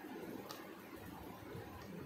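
Quiet room tone with a single light click about half a second in and a fainter tick near the end.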